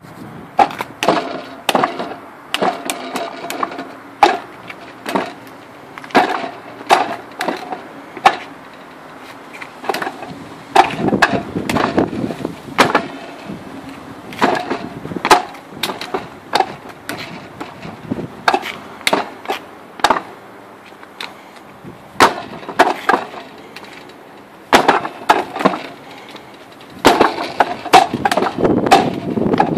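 Wing Chun wooden dummy being struck by forearms and hands: sharp wooden knocks at an uneven pace, coming in quick flurries about a third of the way in and again near the end.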